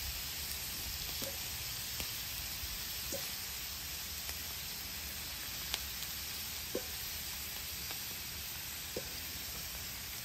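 Potato wedges sizzling in oil on a Blackstone flat-top griddle, freshly flipped: a steady frying hiss with a few small pops and ticks.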